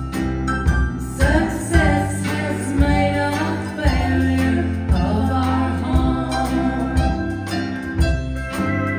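Woman singing a country song live, backed by a country band with electric bass and drums on a steady beat.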